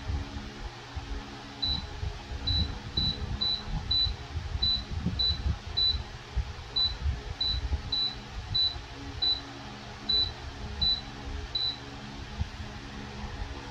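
Comfort Zone CZ16WR wall-mounted fan giving a short, high beep each time a remote-control button is pressed: about sixteen beeps at uneven intervals, starting a couple of seconds in and stopping near the end. Under them runs the steady low hum of the fan's motor.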